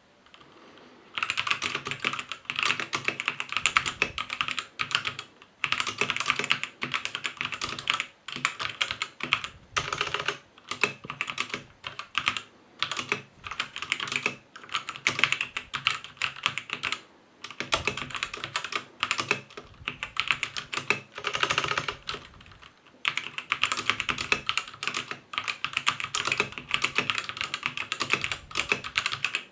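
Typing on a Krom Kernel TKL mechanical keyboard with Outemu Red linear switches: rapid key clicks and clacks in runs of a few seconds, broken by brief pauses. The typing starts about a second in.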